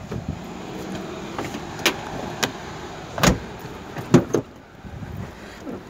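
Handling noise as a bag is set down at a car: a handful of sharp knocks and clicks, the loudest about three seconds in, over a steady faint background hum.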